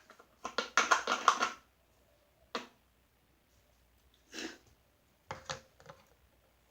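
Handling of plastic slime-making containers: a burst of rapid clicking and rattling, then a single click, a soft rustle and a few scattered clicks.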